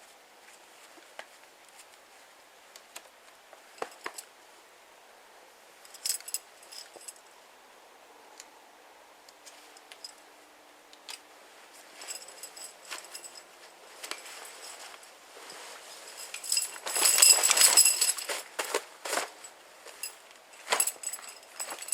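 Small hard objects being handled: scattered clicks and light metallic clinks. About seventeen seconds in comes a denser, louder two-second burst of rattling and clinking, and a few sharp clicks follow near the end.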